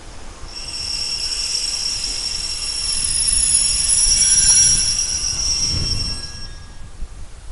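Wheel squeal from a diesel multiple unit moving slowly through the station: several high-pitched, steady squealing tones over a low rumble. The squeal starts about half a second in and fades out near the end.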